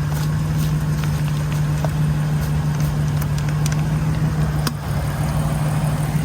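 Single-turbo Infiniti G35's 3.5-litre V6 idling steadily, with a few faint ticks over it and a brief dip in level late on.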